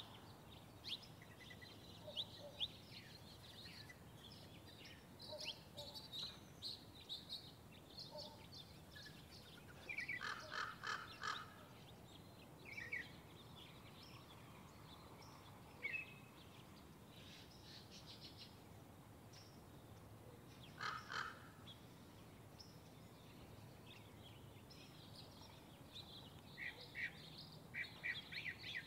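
Birds chirping and calling, with many short high chirps throughout. There are two louder runs of harsher calls, about ten seconds in and again around twenty-one seconds in.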